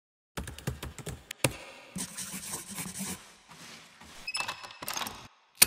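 A rapid run of sharp clicks and knocks, a stretch of rushing noise, a few short ringing tones, and one loud sharp hit near the end.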